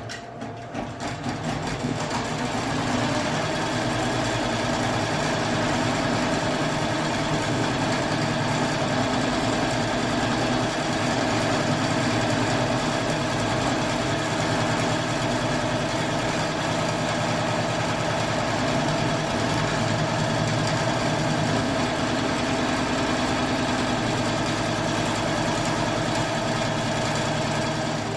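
Multi-needle embroidery machine running steadily while it sews a placement stitch outline onto tearaway stabilizer. It comes up to speed over the first couple of seconds and stops right at the end.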